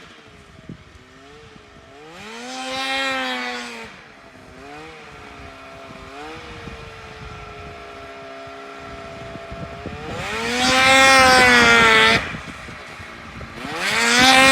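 Yamaha Phazer snowmobile engine blipping the throttle near idle, then revving hard three times, each time held high for a second or two before dropping back.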